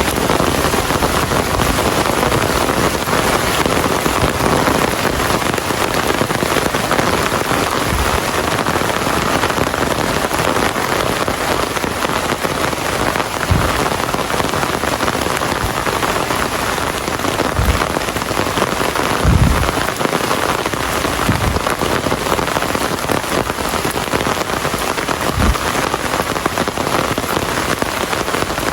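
Steady rain falling on surfaces, an even hiss throughout, with a few short low thumps scattered through it.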